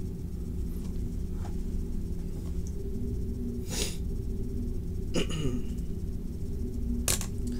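A steady low hum of room and recording noise, with three short breaths close to the microphone at about four, five and seven seconds in.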